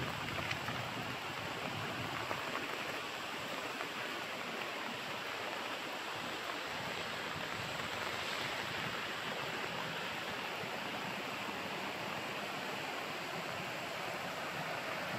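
Steady rushing of flowing water, as from a stream or waterfall, holding even throughout.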